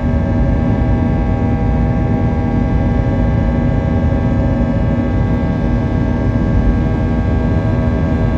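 Airbus A319's twin jet engines running steadily at power, a loud even roar with a strong hum and several fixed whining tones over low noise.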